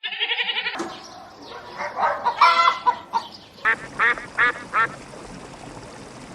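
Waterfowl calling: a quick run of rapid calls, then a jumble of overlapping calls, then four short calls in a row, evenly spaced.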